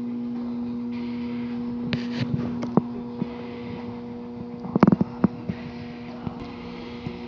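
Roll-cab tool box drawers clicking and clattering over a steady hum, with a short burst of metal knocks about five seconds in: one drawer being shut and the next pulled open.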